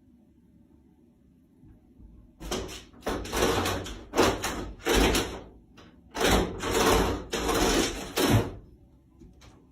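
A door rattling and scraping in a run of about seven harsh bursts, each under a second long, starting about two seconds in.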